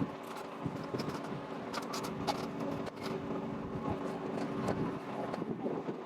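Steady mechanical hum with scattered light knocks and clicks throughout.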